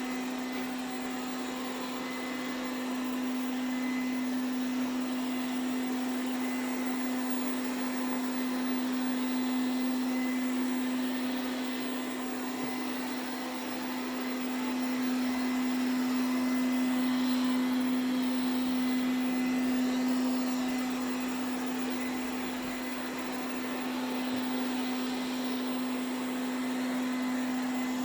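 Ziglint robot vacuum cleaner running, likely on its highest-power suction setting: a steady motor hum over a continuous suction hiss, getting slightly louder and softer as it moves around.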